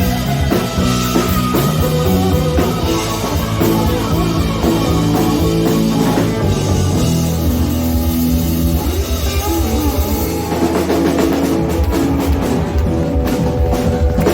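Live rock band playing an instrumental passage, with drum kit and guitar over a steady beat.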